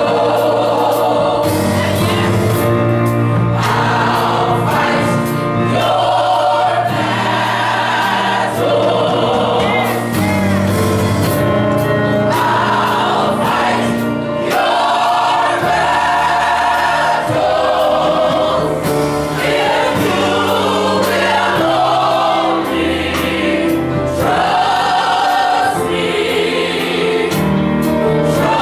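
Gospel choir singing in full voice, accompanied by keyboard and percussion.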